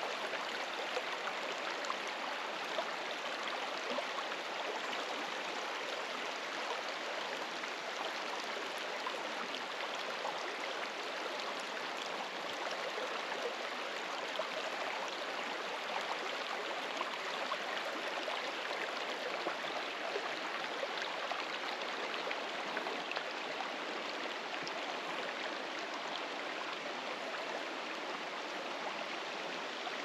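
A stream flowing steadily over rocks: an even rushing of water with small splashes here and there.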